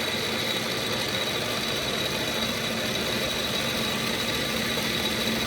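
Metal lathe running steadily, a constant machine hum and whir with a few steady tones, while rear-end housing ends are being machined down.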